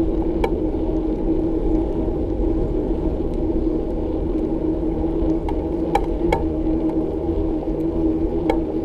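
Steady low rumble of riding a bicycle along the road, with a constant hum through it and a few light clicks or rattles, most of them between about five and a half and eight and a half seconds in.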